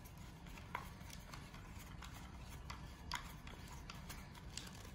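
Faint, scattered plastic clicks and ticks as a small tripod is screwed onto the threaded base of a Zhiyun Smooth X gimbal handle, over a low steady background hum.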